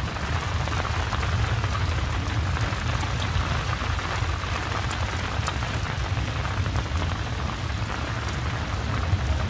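Steady rain falling, with a steady low rumble underneath and a few sharp ticks scattered through it.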